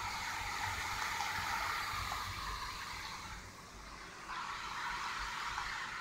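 Storm waves breaking over a seawall, heard through a window as a steady rushing noise that eases about three and a half seconds in and swells again a second later.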